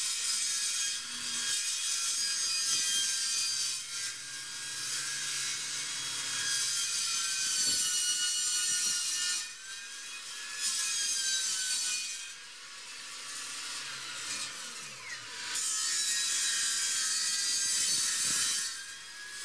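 Table saw ripping a thin sheet of 6 mm plywood: a loud, high-pitched cutting noise from the blade. It eases off twice in the middle and comes back loud as the sheet is fed on through the blade.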